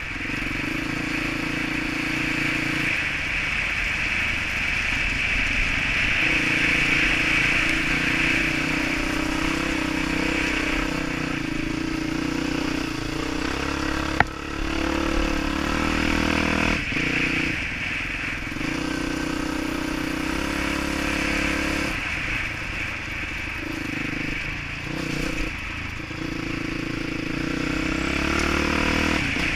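Dirt bike engine running under changing throttle, heard from a helmet-mounted camera. Its pitch steps up and down several times with throttle and gear changes, and there is one sharp click about halfway through.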